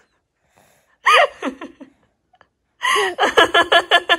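An 11-month-old baby laughing: one squealing laugh about a second in, then a quick run of rhythmic laughs, about seven a second, near the end.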